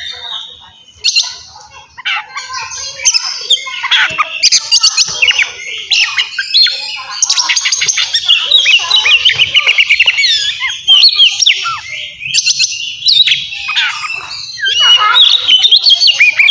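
Oriental magpie-robin (kacer) singing loud, fast, varied phrases of whistles, rapid chirps and harsh notes, the aggressive fighting song that keepers use to provoke other males. There are brief pauses just after the start and around twelve seconds in.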